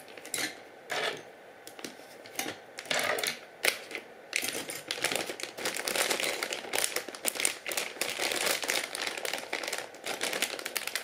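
Crochet hooks clicking and clattering against one another as a handful is slid back into their bag. A few separate clicks at first, then a dense run of small rapid clicks from about four seconds in.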